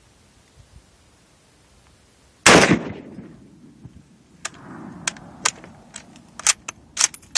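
A single rifle shot about two and a half seconds in, with a short ringing tail. It is followed by a run of sharp clicks and knocks.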